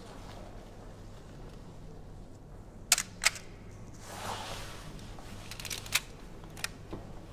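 Film SLR camera's shutter firing: two sharp clacks about a third of a second apart a few seconds in. A short rasp and a run of lighter clicks follow as the film advance lever is wound on, with one more click near the end.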